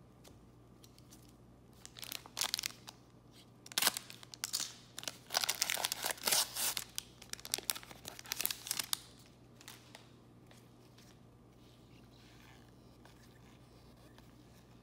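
Foil trading-card pack wrapper being torn open and crinkled by hand, in irregular bursts of crackling from about two seconds in until about nine seconds.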